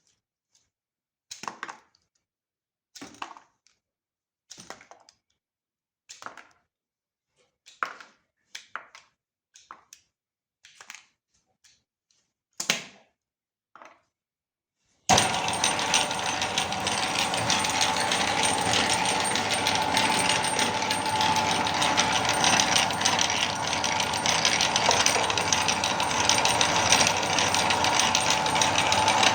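A run of short separate clatters, about one every second and a half; then, about halfway through, a meat grinder starts and runs steadily with a constant whine and a dense grinding rattle as it works through soap.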